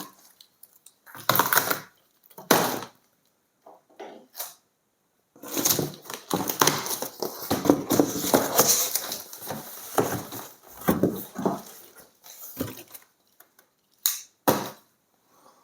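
A cardboard box being opened and its packaging handled. A few short scrapes come first, then several seconds of continuous rustling and scraping, and a few sharp knocks near the end.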